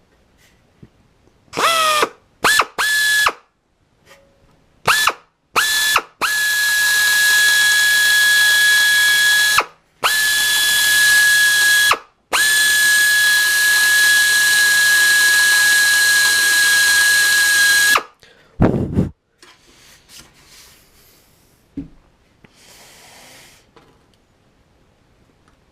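Power drill drilling out rivets. It spins up, runs in a few short bursts, then runs in three long stretches of several seconds with a steady high whine over a hiss, and stops just after the middle.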